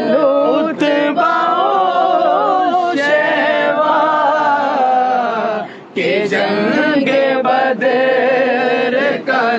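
Two men's voices chanting together in a held, melodic devotional recitation, with a brief pause about six seconds in.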